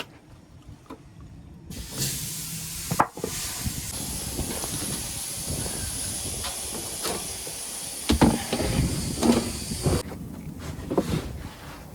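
Pressurised air hissing steadily with a thin high whistle, as on a truck tyre or inner tube being deflated or inflated. It starts about two seconds in and cuts off suddenly near the end, with a few metallic knocks and clanks along the way.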